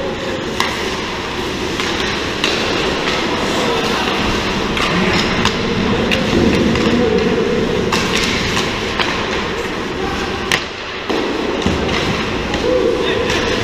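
Ice hockey play: a steady scraping hiss of skate blades on the ice, with frequent sharp clacks of sticks and puck scattered throughout.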